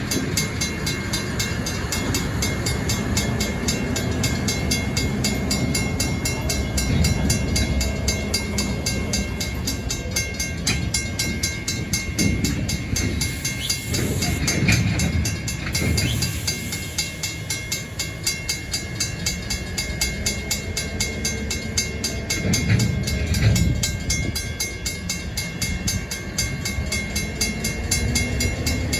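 Stockton Terminal & Eastern freight train moving: diesel locomotive rumble with rolling railcars, a steady thin high-pitched whine and scattered clanks. Near the end the engine note rises as it picks up power.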